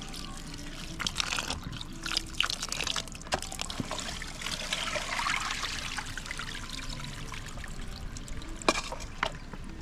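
Water pouring and trickling, with scattered small clicks and knocks.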